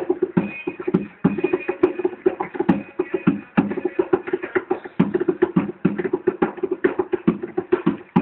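Darbuka (goblet drum) played with fast, dense strokes, sharp rim clicks mixed with deeper ringing drum-head tones in a driving rhythm.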